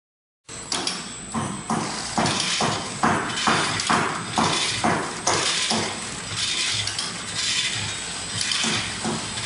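Vertical form-fill-seal sachet packing machine with a volumetric cup doser running, starting about half a second in: a rhythmic mechanical clacking of about two to three strokes a second over a steady high whine and hiss. The strokes grow fainter after about six seconds.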